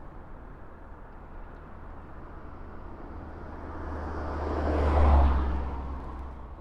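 A road vehicle driving past, its tyre and engine noise growing to a peak about five seconds in and then fading, over a steady low rumble of traffic.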